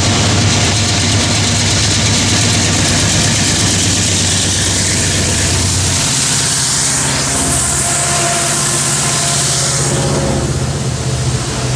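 Norfolk Southern freight diesel locomotives running steadily as they approach and pass close below. About six seconds in, the low engine drone falls away as the lead units go by, and the rushing clatter of wheels on rail takes over as double-stacked container cars roll past.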